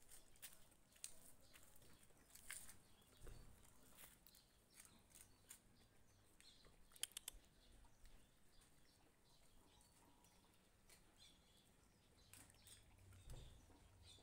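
Faint sounds of dogs eating from bowls: scattered soft chewing and licking clicks, with a short sharp cluster of clicks about seven seconds in.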